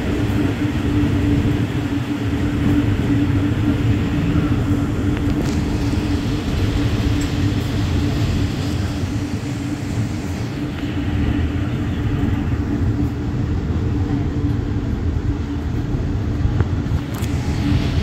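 Moving train heard from a coach coupled behind a diesel locomotive with twin Cummins LTA50L V16 engines. The engines' steady drone with a constant hum runs over the rumble of the coach's wheels on the rails.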